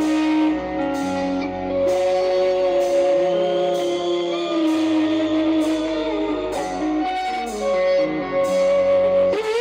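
Live rock band playing loudly through a stadium PA: a double-neck electric guitar holds long sustained notes over a steady drum beat, with a singer's voice.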